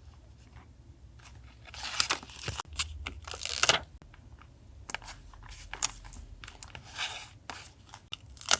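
Paper being torn and handled in a few rasping strokes. The longest rips come about two and three and a half seconds in, another near the end, and it finishes with a sharp snap.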